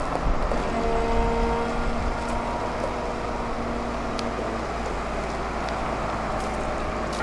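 Self-propelled boat mover running as it drives slowly carrying a trawler in its frame: a steady engine drone over a low rumble, with a steady hum that sets in about a second in.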